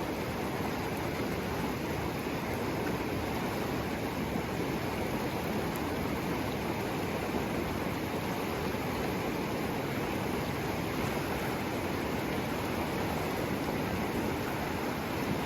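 Mountain creek running high and fast with snowmelt: a steady, even rush of water.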